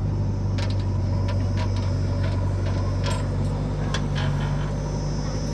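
Heavy diesel engine running steadily, with scattered metallic clanks and clicks over it.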